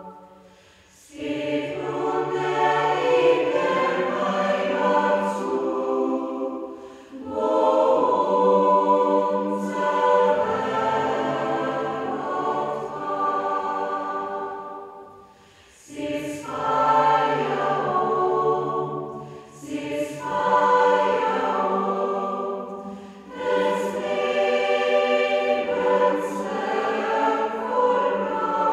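A choir singing, in phrases a few seconds long with short breaks between them.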